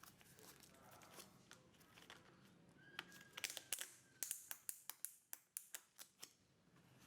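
Near silence, then a run of faint, sharp clicks, about four a second, starting about three seconds in and stopping a little after six seconds.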